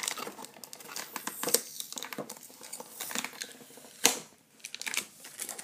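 Cardboard box and plastic packaging being pried open by hand, with crinkling, tearing of tape and many small clicks, and a sharp knock about four seconds in.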